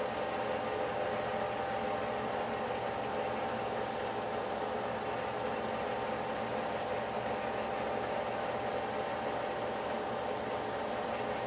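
Steady mechanical whirr and hum of a running film projector, even and unchanging, with a hiss underneath.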